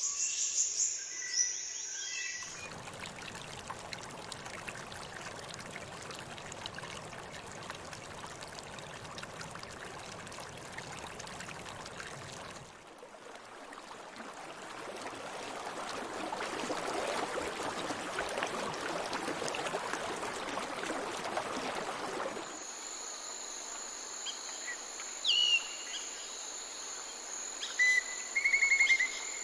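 Tropical rainforest ambience in cut segments. First a steady high insect drone with bird calls, then a long stretch of rushing water, then insects buzzing in steady high tones again, with a few short bird calls and a quick trill near the end.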